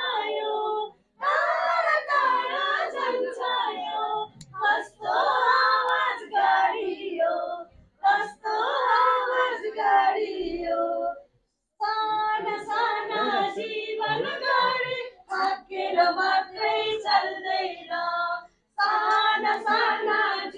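A group of children singing a song together, unaccompanied, in short phrases with brief pauses between them.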